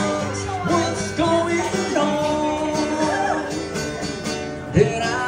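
Music: a song with a voice singing over guitar accompaniment.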